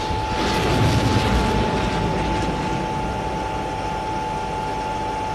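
Pinaka solid-fuel rocket launching from a multi-barrel rocket launcher: a rushing roar that builds to its peak about a second in, then slowly fades as the rocket climbs away. A thin steady high tone runs underneath.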